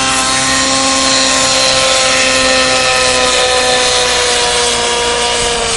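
Align T-REX 700N nitro RC helicopter in flight: its glow engine and rotors give a steady high-rpm whine, the pitch easing slightly lower toward the end.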